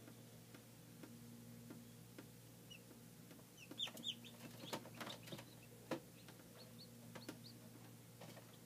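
Newly hatched chicks peeping faintly inside an egg incubator: short high peeps, a cluster about four seconds in and a few more near seven seconds, with scattered light taps and ticks. A low steady hum runs underneath.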